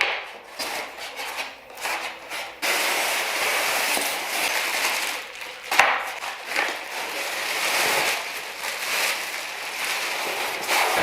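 Packing material being pulled and handled while a bandsaw is unboxed: irregular rustling and crackling, with a sharper knock about six seconds in.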